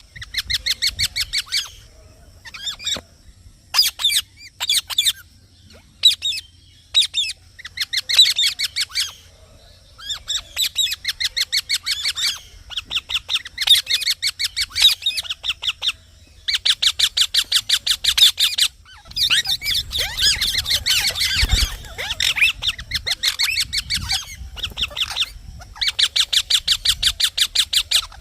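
Green parrot chirping in rapid runs of short, high calls, each run lasting one to three seconds with brief pauses between.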